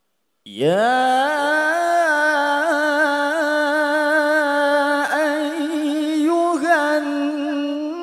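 Male Qur'an reciter (qari) chanting in the melodic mujawwad style. After a brief pause, his voice swoops up into one long held note, stretched on a drawn-out vowel. The note is decorated with quick wavers and dips briefly twice near the middle.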